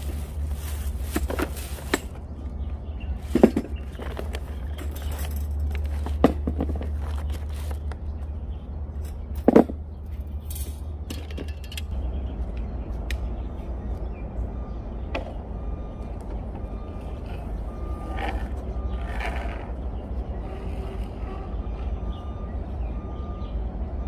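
Plastic bags rustling and hand tools clattering in a metal bucket as they are handled, with three sharp knocks in the first half. Then a steady outdoor ambience with a low rumble.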